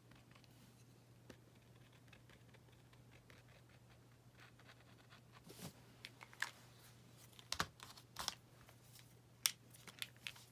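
A few sharp clicks and taps of paint pens being handled on a desk, scattered through the second half, over a faint steady low hum.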